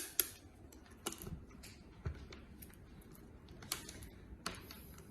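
Sporadic light clicks and taps, about one a second, from small tools and parts being handled.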